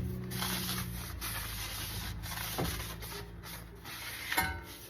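A rag wiping and scrubbing brake cleaner and factory grease off a new drilled-and-slotted brake rotor: a rough rubbing hiss in uneven strokes, with a sharp click near the end.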